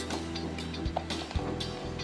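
Background music, with a few light clicks.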